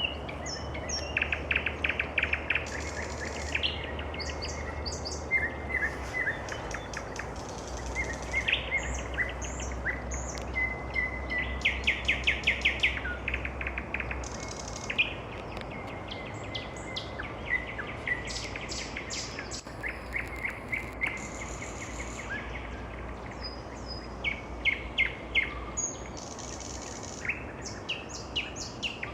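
Nightingale singing: phrases of rapid repeated notes and fast trills, broken by short pauses. A low steady hum runs under the song for about the first half.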